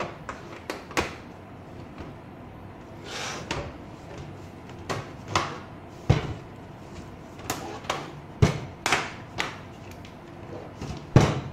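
Plastic clicks and knocks from a Philips LCD monitor's back cover being pressed into place and the monitor being handled, with a few heavier thuds as it is set down on a wooden desk.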